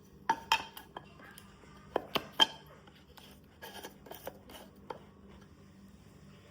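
Light clicks and clinks from handling an electric incense burner as a piece of incense is set on it: a few taps at first, three sharper clinks about two seconds in, then softer taps around four to five seconds.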